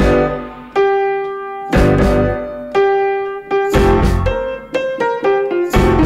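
Background music: a piano playing chords about once a second, each one ringing out and fading before the next.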